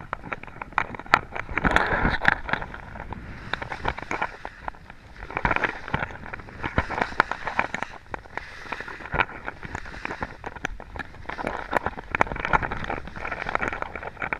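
Skis scraping and hissing over packed snow through a series of turns, swelling and fading every few seconds, with scattered sharp clicks and knocks.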